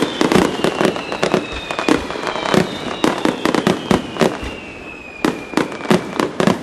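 Aerial firework shells bursting in quick succession, a dense barrage of sharp bangs, with a thin high whistle sliding slowly down in pitch beneath them. The bangs thin out briefly about five seconds in, then come thick again.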